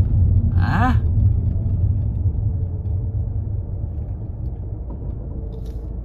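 Alfa Romeo car driving, heard from inside the cabin: a steady low road and engine rumble that grows gradually quieter. A brief voice sound comes just under a second in.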